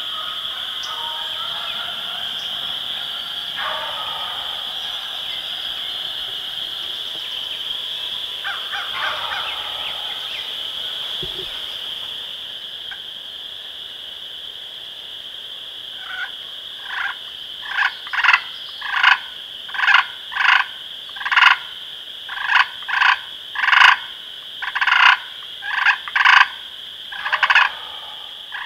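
A steady high-pitched chorus of calling frogs runs throughout, with a wild turkey gobbler faintly gobbling a couple of times in the first half. From just past the middle, a loud series of short, repeated calls sounds about one to two times a second.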